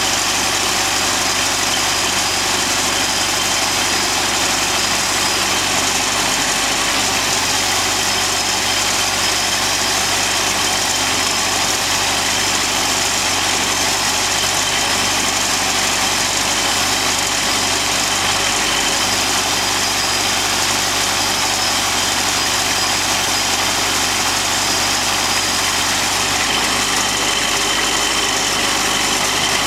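Sawmill engine and machinery running steadily at an even level, with a constant hum and a dense high hiss.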